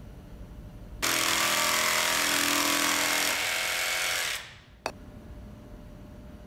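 Makita cordless jigsaw cutting through 2x4 lumber: it starts abruptly about a second in, runs for about three and a half seconds and stops. A single sharp click follows half a second later.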